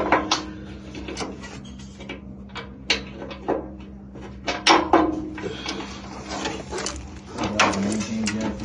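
Irregular clicks and knocks of furnace parts being handled and fitted back into place as the control board is remounted, over a steady low hum.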